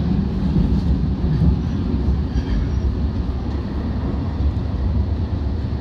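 Steady low rumble of an Alstom Citadis Spirit light rail train running at speed between stations, heard from inside the passenger car.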